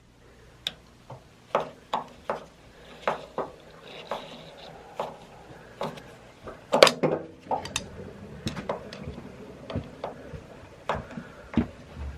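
Irregular clinks and knocks of hard objects being handled, roughly one a second, with a louder cluster about seven seconds in.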